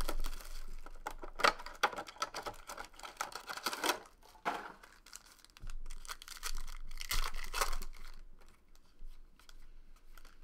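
Trading card pack wrappers being torn open and crinkled by hand, with cards handled and shuffled. The crackling comes in clusters: through the first four seconds, again around seven to eight seconds, then quieter handling.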